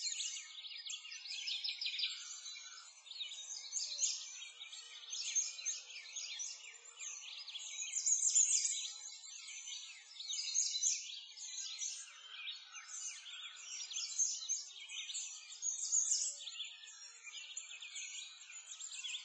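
A continuous chorus of many small songbirds chirping and singing over one another, thick with quick high chirps that swell and fade.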